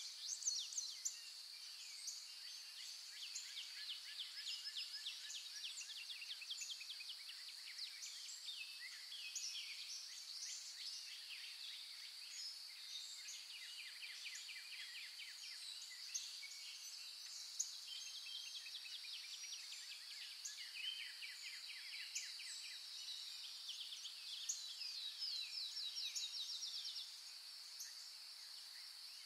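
Birds chirping and trilling in many quick runs of repeated notes, over a steady high-pitched insect drone.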